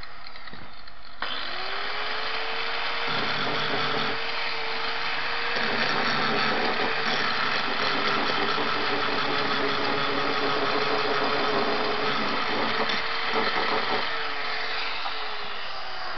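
Angle grinder switched on about a second in, its motor spinning up to speed, then grinding into a thick steel block with the disc, milling a curved groove (radius) into it. Near the end it is switched off and the motor winds down in pitch.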